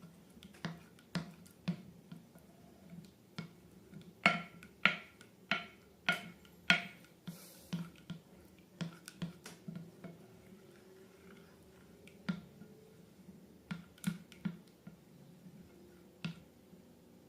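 Slime being handled for ASMR, making a series of sharp clicks and pops. They come about two a second at first, are loudest halfway through, then grow sparser.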